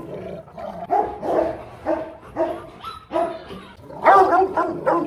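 Rottweiler barking repeatedly, about two barks a second, the loudest about four seconds in.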